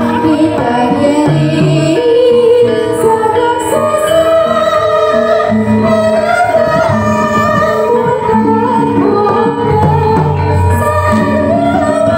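Javanese gamelan music with a woman singing over it, her voice sliding between held notes.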